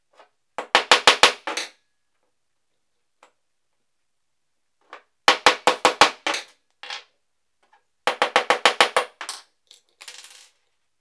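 Three runs of quick metal-on-metal hammer taps on a steel punch, about six blows a second, driving a pin through a bicycle chain link held over a drilled steel block. A short, softer rattle follows near the end.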